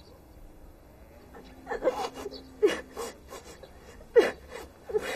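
A woman sobbing: a run of short, broken cries with gasping breaths in between, the sharpest about halfway through and again near the end.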